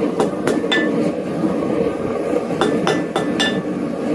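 Hand hammer striking a steel bar on a steel anvil, each blow ringing briefly: three quick blows in the first second, then four more about two and a half seconds in. A steady low background noise runs underneath.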